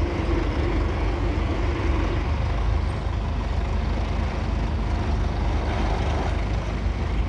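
The 3.6-litre four-cylinder diesel engine of a 1938 Fordson Model N tractor running steadily, with most of its sound deep and low. A higher steady tone fades out about two seconds in.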